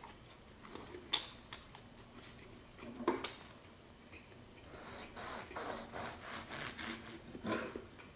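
Serrated knife sawing through a soft bread roll: a run of back-and-forth rasping strokes in the second half, after a few short clicks earlier on.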